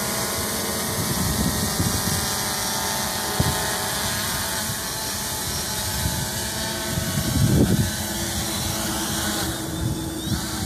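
Multirotor drone's propellers whirring steadily as it descends for a precision landing, with a sharp click about three seconds in and a louder low rumble about seven seconds in.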